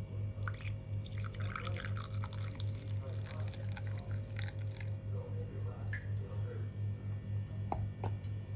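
Brewed coffee poured from a glass server into a glass, splashing and trickling for several seconds. Near the end come two light knocks as the glass server is set back down. Under it all runs a steady, pulsing low hum.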